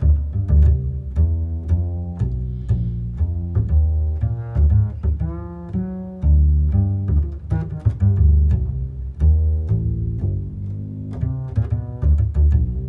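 Instrumental music with a prominent plucked bass line, a quick run of short notes with sharp attacks.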